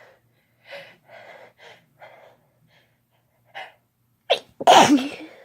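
A person's sneeze: a run of short, quiet breaths building up, a sharp catch, then one loud voiced sneeze about four and a half seconds in.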